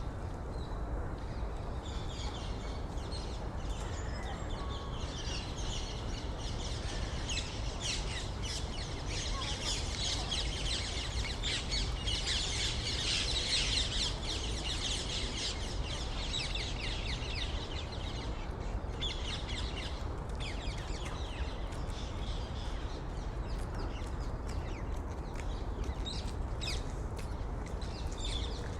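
City park ambience: many small birds chirping and twittering, busiest midway through, over a steady low rumble of distant city noise.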